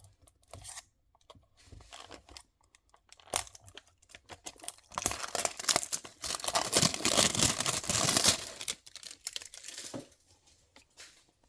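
Packaging of a diecast model car being opened by hand: small clicks and handling noises, then a few seconds of crinkling and tearing around the middle, then more light handling clicks.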